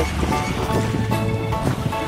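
Background music: held notes over a low bass line.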